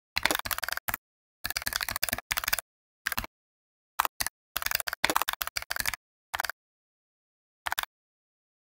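Computer keyboard typing: rapid runs of keystrokes in about seven bursts, the longest near the start and in the middle, separated by dead-silent pauses.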